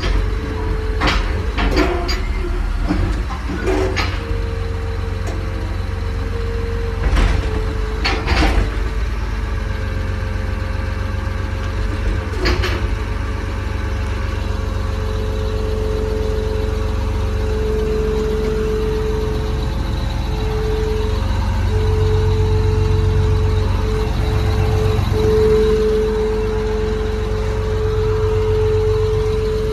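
John Deere 950J crawler dozer's Liebherr diesel engine running, heard from inside the cab, with a steady whine over the engine drone. A few sharp knocks and clicks come in the first several seconds. The engine gets louder for a stretch in the second half.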